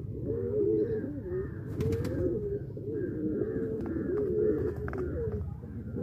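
Fantail pigeons cooing continuously, several low, wavering coos overlapping, with a few sharp clicks about two seconds in and again near five seconds.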